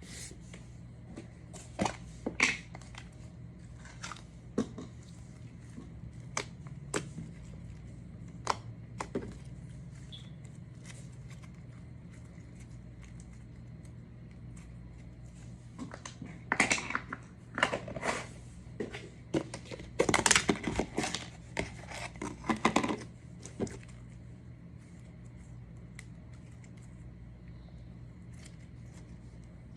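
Hands squishing and poking slime: scattered sticky crackles and pops, busiest from about 16 to 23 seconds in, over a steady low hum.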